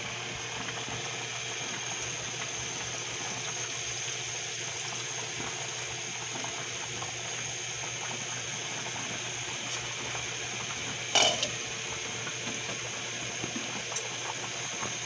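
Broth with ham and carrots coming to a boil in a granite-coated pot on the stove, a steady simmering hiss. A brief knock sounds about eleven seconds in.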